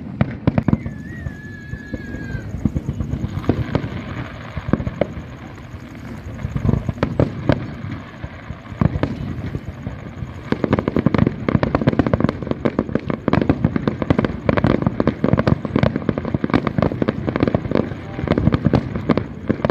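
Fireworks display: a rapid string of bangs and crackles from aerial shells, growing denser and louder about halfway through. A brief wavering whistle sounds about a second in.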